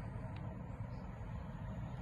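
Approaching passenger train giving a steady low rumble.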